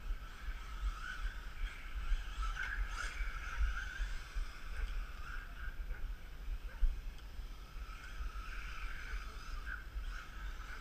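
Small electric RC rally cars' motors and drivetrains whining as they are driven, the whine swelling and fading with the throttle over a steady low rumble.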